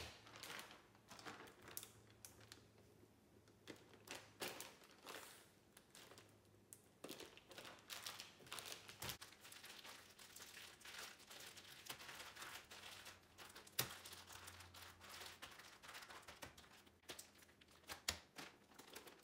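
Plastic zip-top freezer bags of marinated chicken being pressed flat and handled: faint, irregular crinkling and rustling of plastic, with a few sharper clicks.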